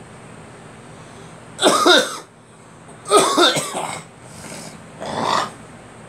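A person coughing: two loud, harsh coughs about a second and a half apart, followed by two softer ones near the end.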